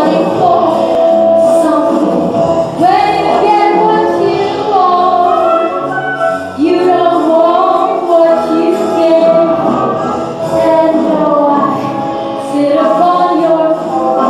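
Music: a woman singing a song with accompaniment, her voice holding and sliding between long notes.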